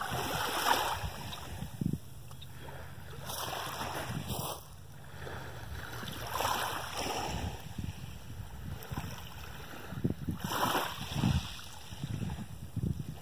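Small waves lapping in the shallows at the water's edge, the wash swelling every few seconds, with wind buffeting the microphone.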